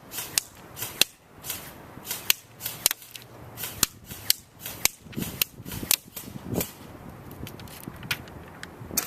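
JG M4 commando airsoft electric gun (AEG) firing single shots in semi-auto, sharp clicking pops about two to three a second, slowing to a couple of shots in the last few seconds.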